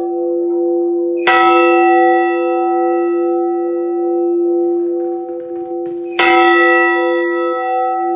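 A church bell tolled slowly: struck about a second in and again about five seconds later, each stroke starting bright and ringing on with a long hum until the next.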